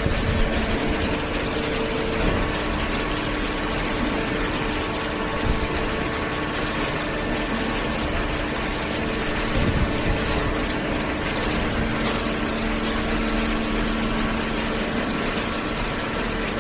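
Hydraulic baler's electric motor and pump running, a steady machine hum with a low tone held throughout.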